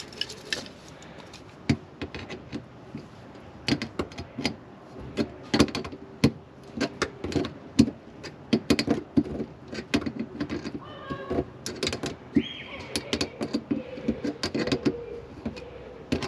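Pliers working a metal hose clamp onto a diesel heater's flexible stainless-steel exhaust pipe: a long run of irregular metallic clicks and clinks, with a brief squeak a little after halfway.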